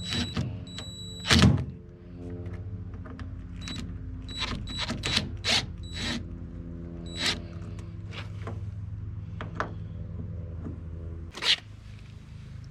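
Sharp metallic knocks and clinks of hand tools on the aluminum hull while loose transom bolts are taken out and sealed. The loudest knock comes about a second and a half in, another near the end, and a steady low hum runs underneath.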